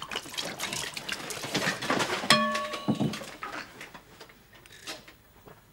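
Small clicks and knocks of glassware and a ladle being handled at a punch bowl, with one short ringing clink about two and a half seconds in. The handling noises grow fainter toward the end.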